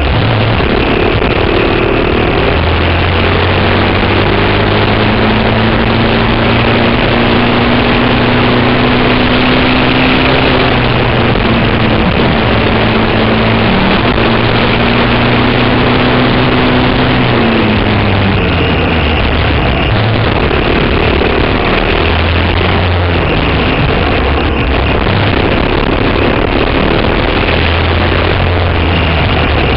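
Racing kart's Briggs & Stratton Animal single-cylinder four-stroke engine running hard, heard onboard. Its pitch climbs slowly for several seconds, drops sharply a little past halfway as the driver lifts for a corner, then climbs again.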